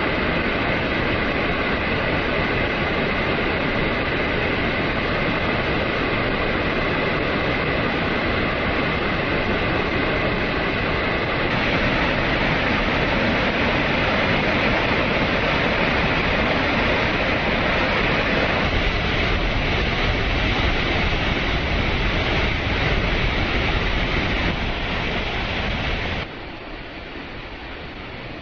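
Loud, steady roar of rushing floodwater. It drops sharply quieter about two seconds before the end.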